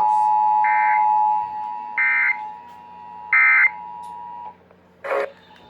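Emergency Alert System two-tone attention signal, a steady pair of tones just under 1 kHz, loud for about a second and a half and then faint. Three short screeching SAME digital data bursts sound over it about a second apart, the pattern of an EAS end-of-message code. A brief burst of noise comes near the end.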